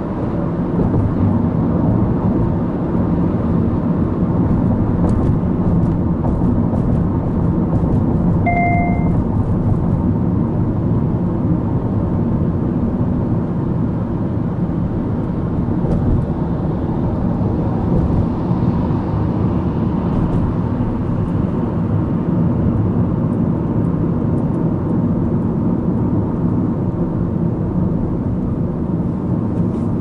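Inside the cabin of a moving Subaru Impreza Sport 1.6i-L (FB16 flat-four with Lineartronic CVT): a steady engine and road-noise rumble. One short electronic beep sounds about eight and a half seconds in.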